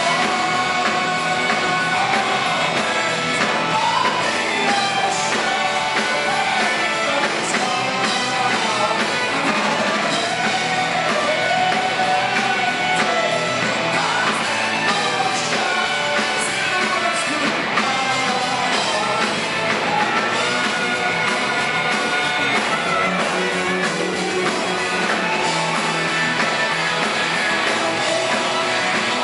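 Live rock band playing electric guitars, bass, keyboards and drums, with a sung lead vocal line through much of the passage.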